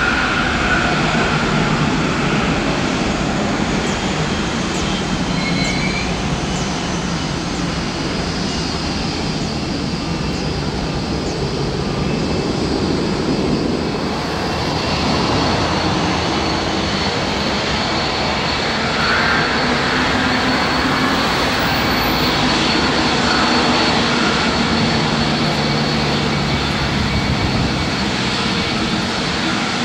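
Boeing 787-9 Dreamliner's turbofan engines running as the airliner taxis and lines up on the runway: a steady jet engine rumble with a faint high whine.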